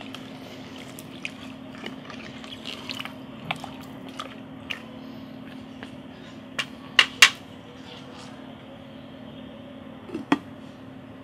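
Utensil clicks and knocks against a black cooking pot of simmering pork stew, the two loudest close together about seven seconds in, then the lid set down on the pot about ten seconds in, over a steady low hum.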